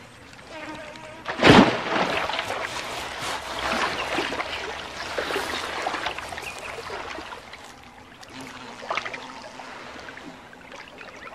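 A sudden loud splash about a second and a half in as a crocodile lunges from the water and snatches a green pigeon, followed by several seconds of splashing, churning water that dies down, with a smaller splash near the end.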